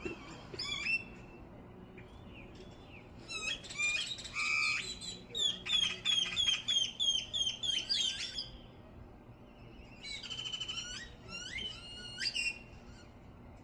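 Several small birds chirping and calling in bursts of quick high chatter. In the middle comes a run of rapid falling chirps, about four a second.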